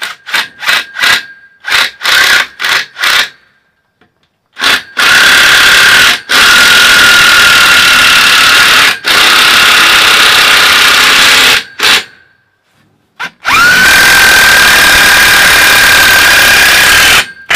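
14.4-volt cordless drill boring pilot holes with a 1/8-inch bit: several quick trigger pulses at first, then two long runs of several seconds each with a steady high motor whine. The second run starts with the whine rising quickly as the motor spins up.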